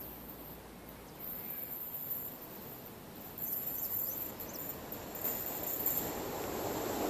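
Rumble of an approaching diesel locomotive-hauled train, growing steadily louder as it nears. Over it, a steady high insect trill and a few short chirps about halfway through.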